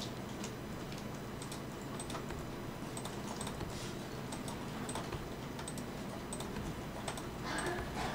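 Light, irregular clicks of a computer mouse and keyboard over a steady background hiss, with a brief louder rustle near the end.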